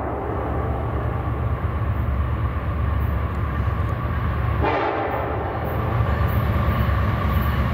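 Diesel freight locomotive's air horn sounding a long held chord as the train approaches the crossing, over the low rumble of the locomotive. The horn grows louder about halfway through.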